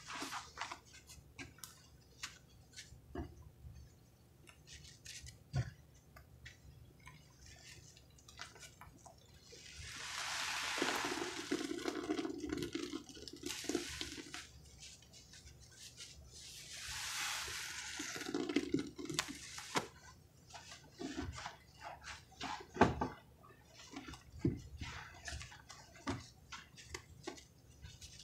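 Soaked foam sponges squeezed and kneaded by hand in a basin of sudsy pine cleaner: wet squelching with many small crackles of bursting suds. Two longer squeezes about ten and seventeen seconds in push out a louder rush of liquid.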